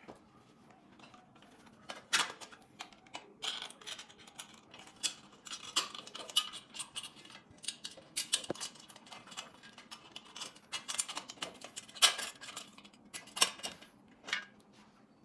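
Hands fitting cables and a plastic headlight to an electric bike's front fork: irregular clicks, taps and rustles of small plastic and metal parts, the sharpest click about twelve seconds in.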